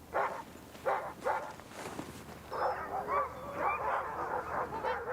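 Sled huskies barking a few times, then breaking into a dense chorus of overlapping yelps and whines from several dogs about two and a half seconds in.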